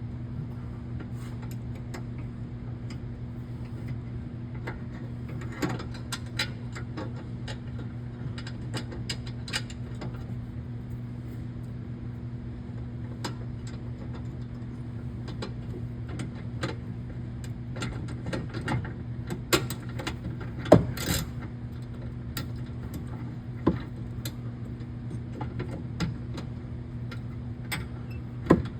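Scattered metal clicks and clinks of hand tools (socket, wrench) on bolts and a steel latch bracket, over a steady low hum. The clicks grow more frequent in the second half, with the sharpest knock about two-thirds of the way in.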